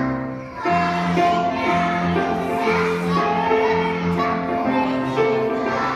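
Music with a high singing voice, held notes over a chordal backing; it drops out briefly about half a second in, then carries on.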